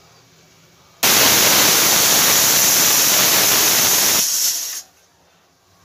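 Pressure cooker whistle: steam blasts out from under the weight valve in a loud hiss that starts suddenly about a second in, holds for about three seconds and dies away. It is the sign that the cooker has come up to pressure with the dal boiling inside.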